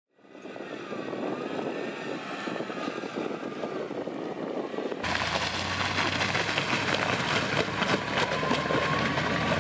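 Jeep Wrangler engine running as the Jeep drives through a muddy puddle, with water sloshing. About five seconds in it cuts to the Jeep's tyres breaking through an iced-over puddle: many sharp cracks and splashes over a steady low engine hum.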